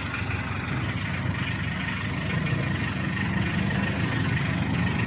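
An engine idling steadily, a continuous low rumble.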